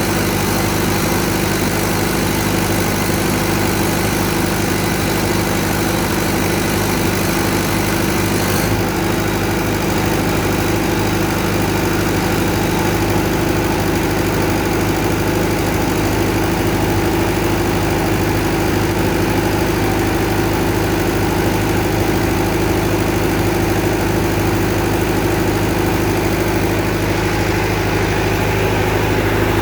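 Tsuzumi TD30 30 kVA water-cooled four-cylinder diesel generator running steadily at constant speed. A high hiss above the engine note eases off about nine seconds in.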